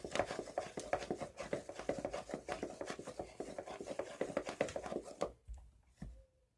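Utensil stirring a thick mix of white glue and shaving cream in a bowl: quick, irregular scraping and clicking against the bowl that stops about five seconds in.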